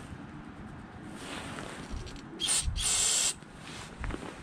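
Aerosol carburetor cleaner sprayed through a straw into the bowl jet of a Tecumseh carburetor, in two hissing bursts a little past halfway through, a short one and then a longer one of about half a second, to check that the jet's passages are clear.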